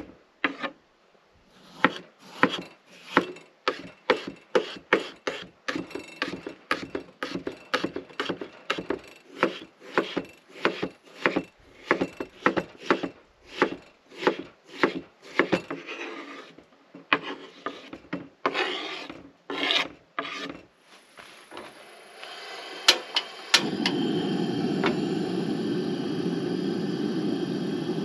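Chef's knife chopping potatoes on a wooden cutting board, about two strikes a second, thinning out and stopping after about twenty seconds. A few seconds before the end, a steady frying hiss starts as the diced potatoes go into the hot pan on the camp stove.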